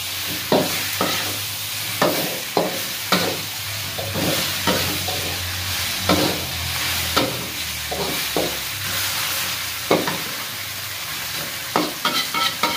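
Tofu, tomato and spice paste sizzling in a metal wok while a metal spatula stir-fries them, scraping and knocking against the pan every half second to a second, with a quick run of knocks near the end.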